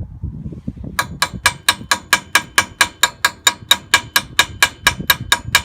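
Rapid, evenly spaced metallic clicks with a ringing edge, about four to five a second, starting about a second in and going on steadily, over a low wind rumble.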